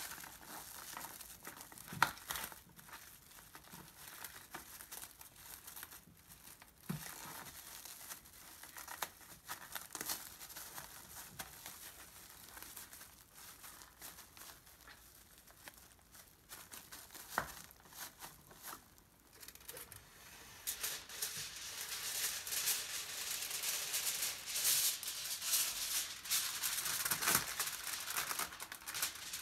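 Paper burger wrapper and plastic wrap crinkling and crackling in bursts as a hamburger is wrapped by hand. Two-thirds of the way in, aluminium foil being pulled from its roll and handled takes over, with denser, louder crinkling.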